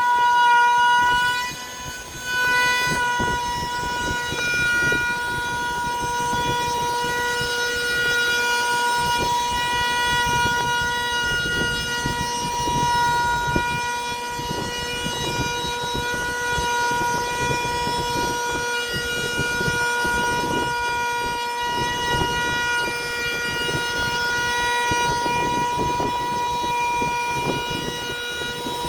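A high-speed electric woodworking power tool running steadily with a high-pitched whine, its level dipping briefly about two seconds in.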